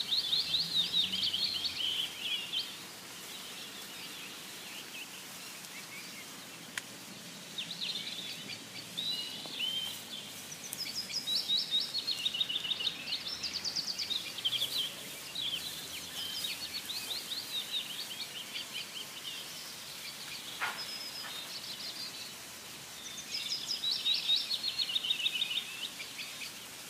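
Birds singing in bursts of rapid, high chirping trills a few seconds apart, over a steady background hiss.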